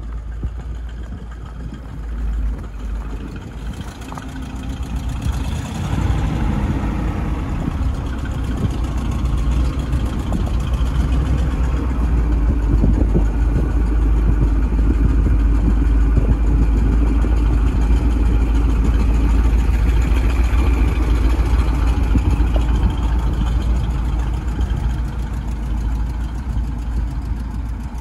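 1973 Chevrolet C65 dump truck engine running steadily, growing louder a few seconds in and holding there while the dump bed is raised on its hoist.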